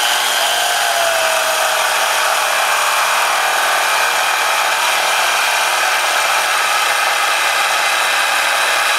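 Electric carving knife running steadily, its serrated blades sawing back and forth through a cooked beef roast.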